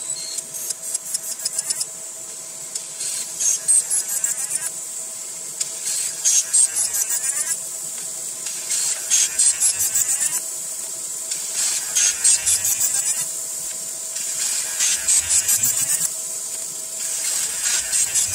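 A 50 W fiber laser marking aluminium: repeated bursts of rapid crackling buzz, one for each square of the test grid, over a steady hum. The footage is played at four times speed.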